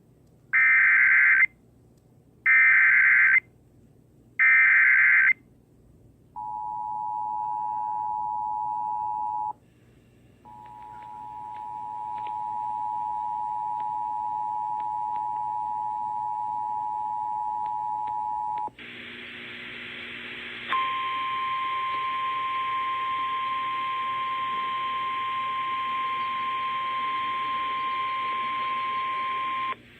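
Emergency Alert System tones announcing a severe thunderstorm warning. First come three short SAME header data bursts of about a second each, then the two-tone attention signal, which drops out briefly about ten seconds in and fades back. From about twenty seconds in, the NOAA Weather Radio single-tone warning alarm sounds steadily over a hissing radio channel.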